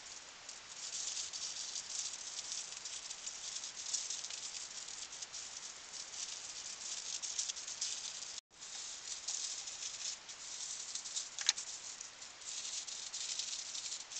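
Aluminium foil crinkling and rustling as it is folded and pressed around a piece of meat, an irregular crackle that briefly cuts out about eight and a half seconds in.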